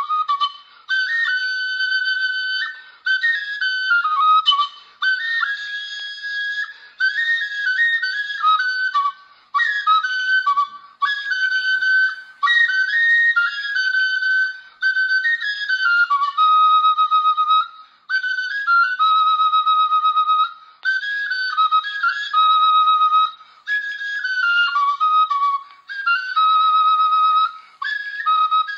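Background music: a single high, flute-like melody played in short phrases of held and stepping notes, with brief pauses between phrases.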